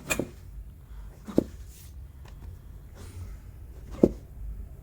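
Short thumps and knocks of hands-on chiropractic treatment on a treatment table: three brief sharp knocks, one at the start, one about a second and a half in and a louder one near the end, over a low steady room hum.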